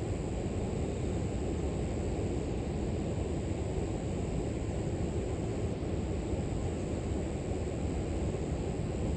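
River water flowing, a steady low rush with no breaks, with a thin, steady high insect drone above it.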